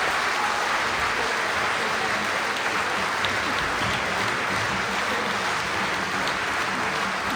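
Concert audience applauding: steady, dense clapping.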